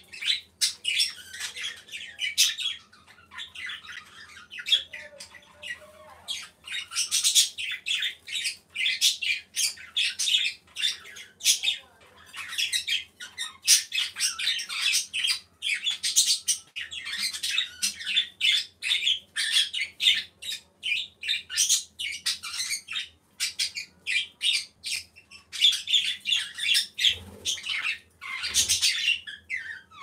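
Small birds chirping and squawking in quick, busy bursts, high-pitched, with two low thumps near the end.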